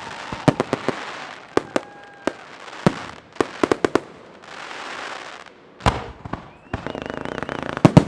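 Fireworks display: aerial shells bursting in sharp, irregular bangs with a crackling hiss between them, then a dense run of rapid crackling near the end.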